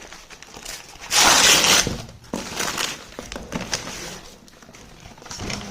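Packaging being torn open and handled: a loud tearing rasp about a second in, followed by shorter crinkling rustles and small clicks.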